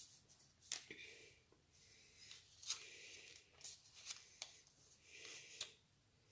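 Faint rustling and a scattering of light clicks from phone-box packaging being handled as the contents are taken out.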